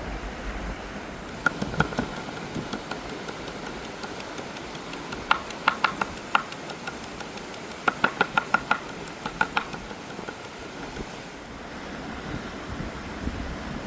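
Cooking utensils tapping in several short bursts of quick, sharp clicks with a slight ring, over steady outdoor background noise with a low rumble.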